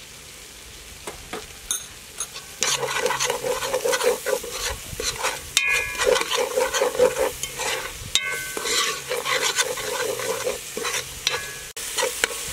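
Spoon stirring and scraping a spice paste that is frying and sizzling in oil in a metal pot. The stirring gets louder and busier about two and a half seconds in, with brief squeaks of metal on metal.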